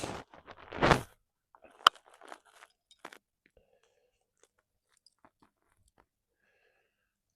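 Gear being handled against a tree while a camera-arm strap is fitted: two short scraping rustles, a sharp click about two seconds in, then a few faint clicks and taps.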